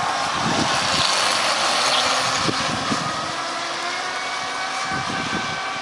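Radio-controlled model boat's motor running, a thin whine over a steady hiss, the whine climbing in pitch near the end.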